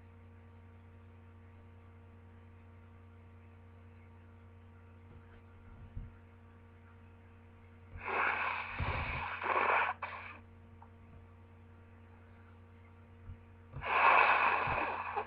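Two loud nasal blasts from a person with a head cold, about six seconds apart, each lasting about two seconds, over a steady electrical hum.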